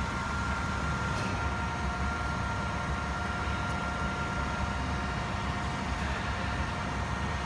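Favretto grinder running with a steady machine hum and thin whining tones while its hydraulic X-axis table is jogged in the minus direction. A new tone comes in about a second and a half in, and the highest whine fades out about two-thirds of the way through.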